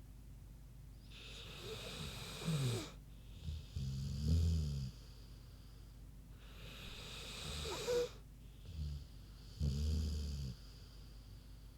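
American Bulldog snoring in her sleep: two slow breaths about five seconds apart, each a breathy, wheezy hiss followed by a low, rattling snore.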